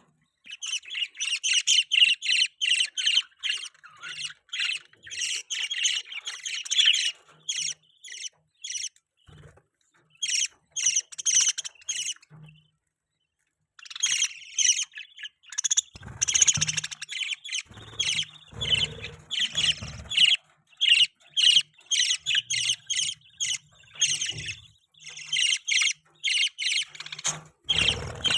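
Budgies chirping and chattering in quick runs of short high calls, with a brief pause about halfway through. A few low bumps come in the second half.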